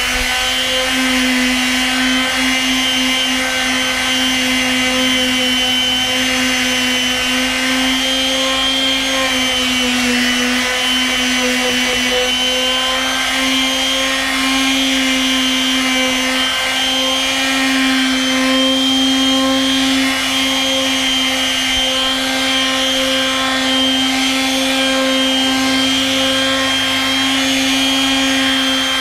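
Makita random orbit palm sander running steadily, sandpaper rubbing on the deck boards. The motor hum wavers slightly in pitch now and then.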